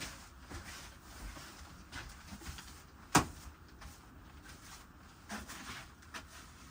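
Scattered light knocks and clicks, like objects being handled, with one sharp, much louder knock about three seconds in.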